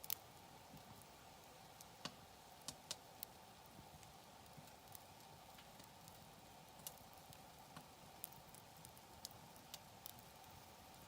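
Campfire wood crackling quietly: irregular sharp pops and snaps over a faint steady hiss, with the loudest pop right at the start and a quick cluster about two to three seconds in.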